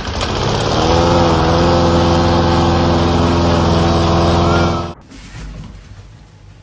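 A motor or engine running at a steady low hum, cutting off abruptly about five seconds in.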